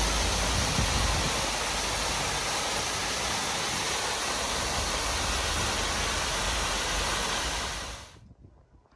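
Waterfall pouring into a pool: a steady wash of falling water that drops away sharply about eight seconds in.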